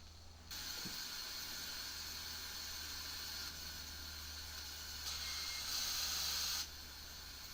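A steady, even hiss that starts abruptly, grows louder about five seconds in, then drops back suddenly near the end.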